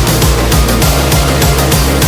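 Loud, driving background music with a fast beat and heavy bass.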